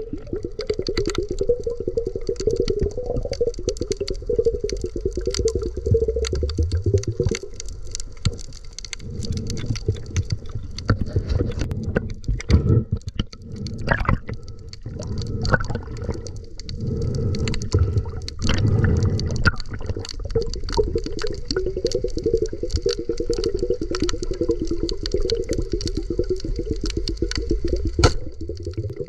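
Water sloshing and churning, with scattered sharp clicks and knocks, a few louder ones in the middle.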